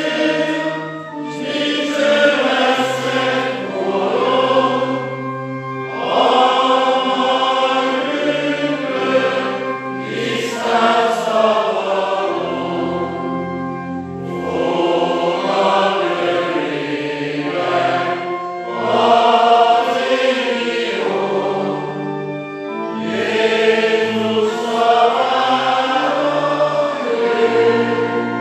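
Church congregation singing a Hungarian hymn together, led by the cantor, with pipe organ accompaniment holding steady low notes. The singing comes in phrases of several seconds with short breaks between them.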